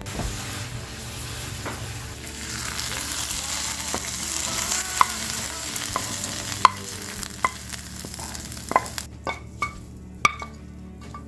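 A sled sliding over snow: a steady hiss that builds and then stops suddenly about nine seconds in, followed by a few sharp clicks.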